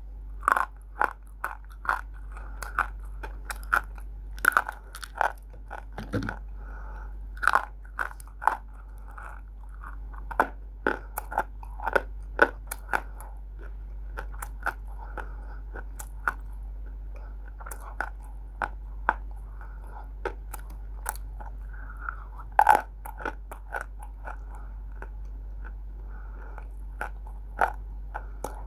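Roasted multani mitti (Fuller's earth clay) being bitten and chewed: sharp, crisp crunches, about one or two a second, coming thicker in the first half and more spread out later.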